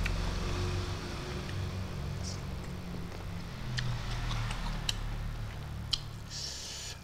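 A man chewing a mouthful of fish and rice close to the microphone, with a few sharp wet mouth clicks and a short smacking hiss near the end.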